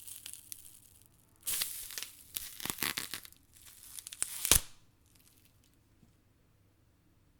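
Tearing sound, ragged and lasting about three seconds, ending in one sharp, loud rip.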